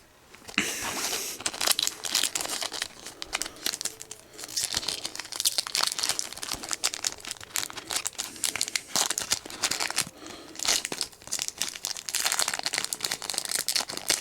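Foil Pokémon trading-card booster pack being crinkled and torn open: a dense, irregular crackling that starts about half a second in and keeps going.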